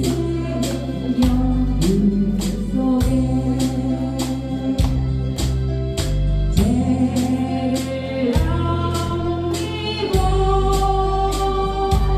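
A woman singing a Korean ballad in long held notes over a backing track of organ-like keyboard, bass and a steady beat of about two strokes a second.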